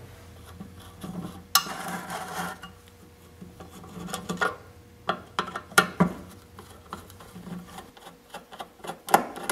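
Phillips screwdriver backing out the screws that hold a plastic carburetor to the top of a small-engine gas tank: scraping and small clicks, with a sharper click about a second and a half in and a run of quick light clicks near the end.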